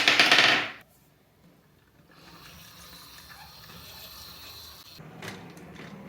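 Marbles rolling on a wooden HABA marble run. A loud rattle fades out within the first second, then a faint steady rolling sound begins about two seconds in, with a few sharp clicks a little past five seconds.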